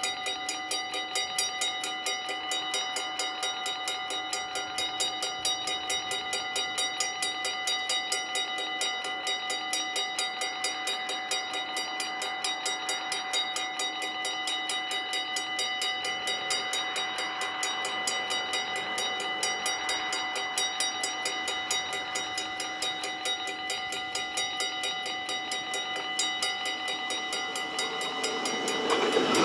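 Dutch level-crossing warning bells ringing in a fast, steady, even rhythm while the barriers are down, signalling that a train is coming. Near the end the rushing of the approaching train grows louder under the bells.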